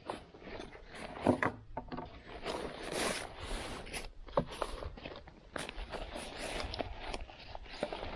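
Gear being handled and packed: nylon pouch fabric and a plastic bag rustling and crinkling, with a few sharp clicks and knocks as items are moved about.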